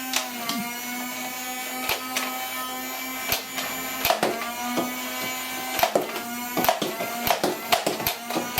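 Nerf Stryfe's battery-powered flywheel motors whining steadily while revved, with repeated sharp clicks as darts are pushed through and fired, some in quick succession.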